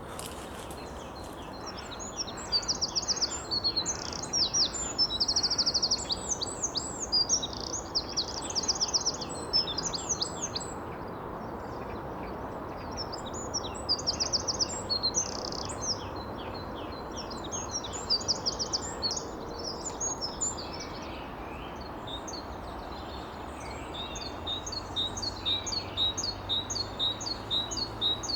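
Eurasian wren singing in long, loud bursts of rapid, high trilled notes, two long phrases with short gaps. Near the end a great tit starts its evenly repeated two-note "teacher, teacher" song.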